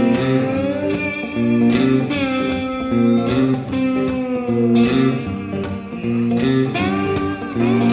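Background music: guitar-led instrumental with a bass line and a bending lead guitar melody.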